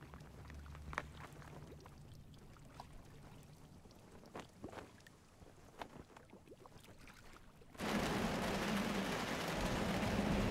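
Calm water with scattered small drips and splashes, then, about eight seconds in, a sudden cut to a loud, steady rush of heavy rain in a storm at sea, with a low hum underneath.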